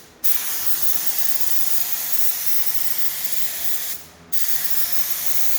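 DeVilbiss spray gun hissing steadily as it sprays paint in passes. The air cuts out briefly twice, once at the very start and again about four seconds in, as the trigger is let go between passes.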